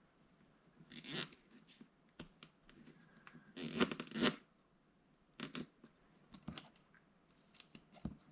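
Handling noises: short bursts of rustling and scraping with a few light clicks, the longest cluster a little before the middle.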